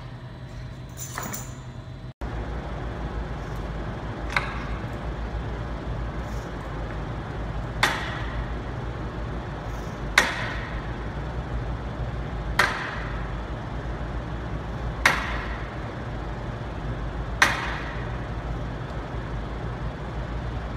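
A plate-loaded barbell clanks once per lift, about every two and a half seconds, over a steady low hum. In the first two seconds there is a brief clatter of gym equipment.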